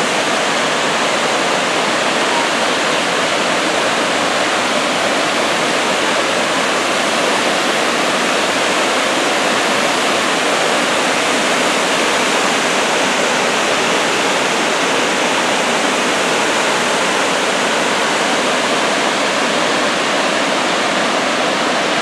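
Kravice waterfalls on the Trebižat river, many cascades pouring over tufa ledges into a pool: a steady, even rush of falling water.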